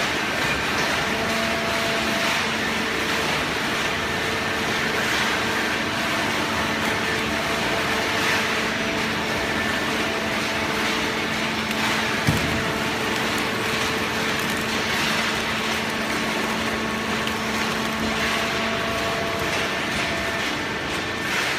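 Hydraulic cardboard baling press running: a steady mechanical hum with a constant-pitch whine, and a single knock about twelve seconds in.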